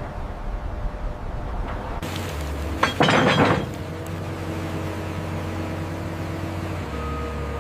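A short, loud crash of breaking material about three seconds in, with a clinking, shattering edge, over a steady low hum.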